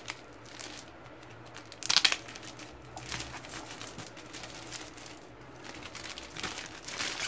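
Plastic wrapping crinkling as it is pulled off a hardcover book, in irregular rustles with the loudest burst about two seconds in.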